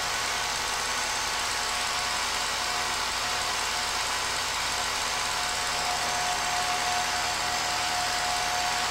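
Film projector running: a steady mechanical whir with hiss and a constant hum.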